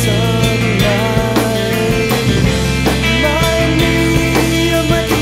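Punk rock band recording: electric guitars, bass and drum kit playing steadily, with a melody line bending in pitch above and regular drum hits.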